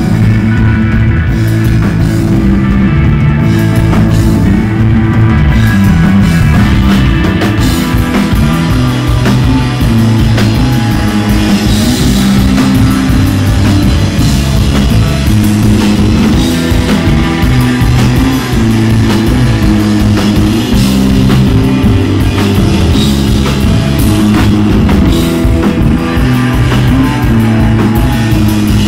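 A live desert rock band playing loud and without vocals: electric guitar, bass guitar and drum kit with cymbals.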